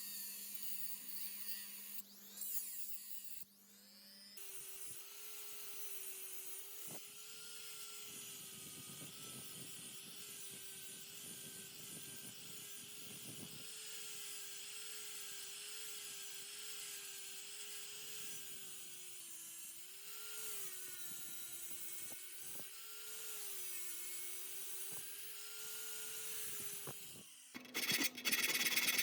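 A small high-speed electric power tool runs steadily on a workpiece, its whine wavering slightly in pitch as the load changes. Near the end it stops and a louder rasping, rubbing noise takes over.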